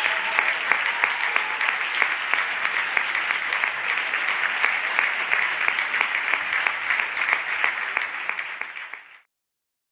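Audience applauding, a dense clapping that fades out near the end and cuts to silence.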